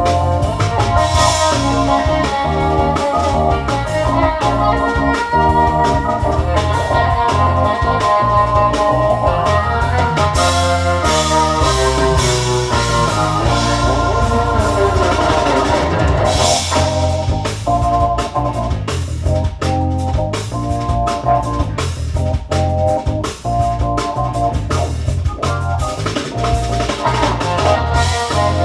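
Rock music with organ and a drum kit, played back through Eosone RSF-1000 four-way loudspeakers and picked up by a microphone in the room. The level is steady, with a falling sweep in the middle.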